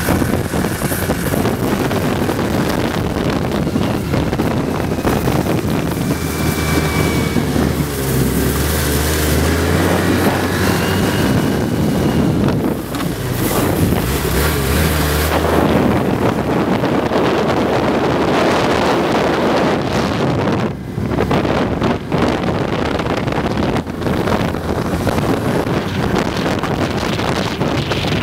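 Snowmobile engine running at trail speed, its note rising and falling as the throttle changes, with wind buffeting the microphone.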